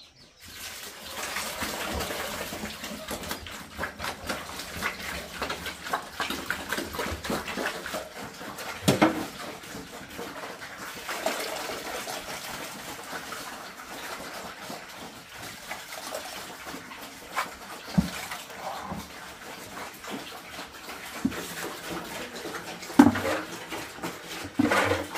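Pigs eating wet slop from a concrete trough: a continuous feeding noise, with a few sharp knocks along the way.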